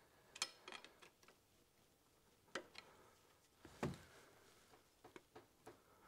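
Faint, irregular clicks and taps of hand tools and fasteners on the metal of a car's AC compressor as it is being unbolted. The loudest is a duller knock a little under four seconds in.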